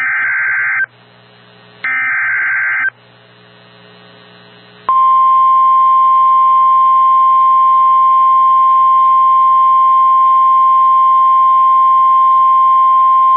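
Emergency Alert System SAME header on NOAA Weather Radio: two warbling digital data bursts of about a second each, the end of the three-burst header that opens a new warning. About five seconds in, the steady 1050 Hz weather radio alert tone starts and holds, with a faint low hum underneath.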